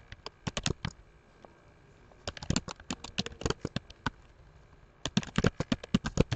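Typing on a computer keyboard: three quick runs of key clicks with short pauses between them.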